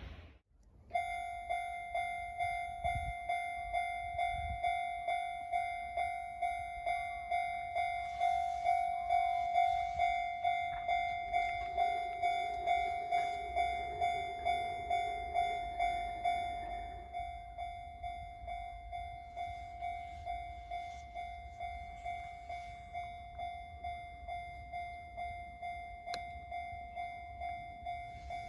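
Japanese level crossing's electronic warning bell ringing, just under two strokes a second. A passing train's running noise mixes in partway through, and after that the bell sounds softer and duller.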